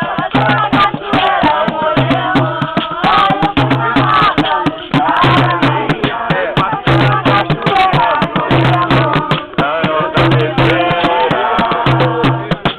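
Live group music: voices singing over a steady, loud percussion of rattles or shakers, with a low drum note returning about every second and a half.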